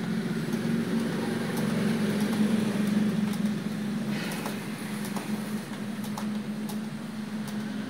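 A steady low hum, engine-like, with a few faint scattered clicks from computer keyboard typing.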